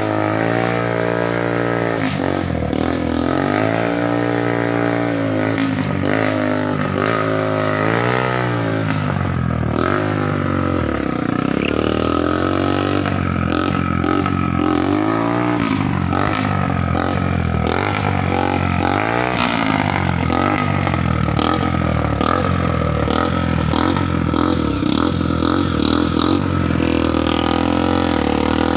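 Motorcycle engine running under way, its pitch rising and falling over and over as the bike speeds up and slows down.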